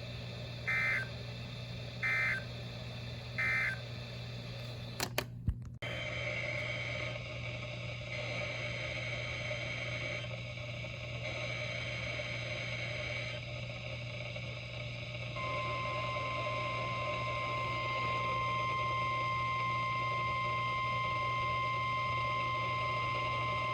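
NOAA Weather Radio test signals played through a radio receiver over a steady low hum. First come three short two-tone SAME data chirps (the end-of-message code) and a click. Then come three longer bursts of SAME header data, and past the middle the steady 1050 Hz warning alarm tone starts and holds.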